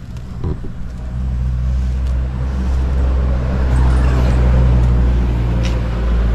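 An engine running with a steady low hum that grows louder over the first couple of seconds and then holds, with a few short clicks near the end.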